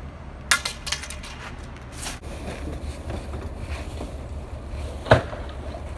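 Junk and garbage bags thrown down onto a dump's debris pile, landing with a few scattered knocks and crashes, the loudest about five seconds in, over a steady low rumble.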